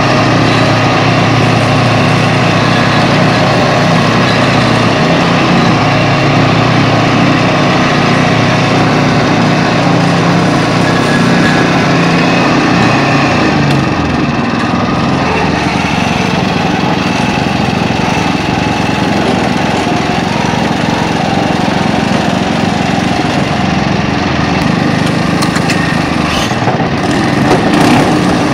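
Pasquali SB30 two-wheel tractor's engine running steadily under way, loud and close; its low note shifts about halfway through. A few short crackles come near the end.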